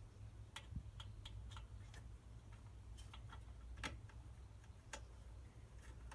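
Light, irregular clicks and taps, about ten in six seconds, from small parts of a Chinese diesel heater being handled and fitted, over a steady low hum.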